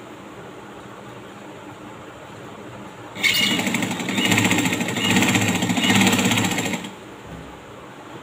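Sewing machine stitching a hem: after about three seconds of quiet while the fabric is set under the foot, it runs steadily for about three and a half seconds, then stops.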